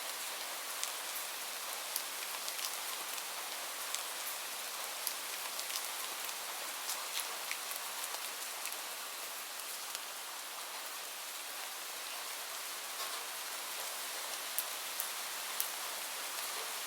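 Steady rain falling on a surface: an even hiss with scattered sharper ticks of individual drops.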